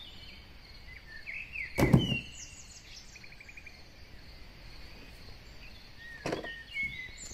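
Birds chirping and trilling in the background, with a sharp knock about two seconds in and another about six seconds in as plastic toy dinosaurs and the cardboard box are handled.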